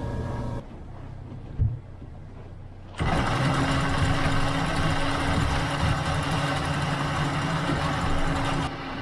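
A motor aboard a small boat runs steadily with a rapid mechanical clatter. It starts abruptly about three seconds in, after a quieter stretch with a single thump.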